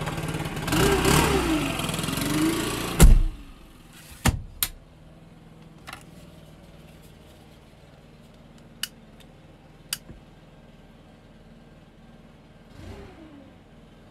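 Gas-powered leaf blower engine running and revving, its pitch rising and falling, for the first three seconds. A loud thump comes about three seconds in, then the blower goes on as a much fainter, steady drone with a few sharp clicks.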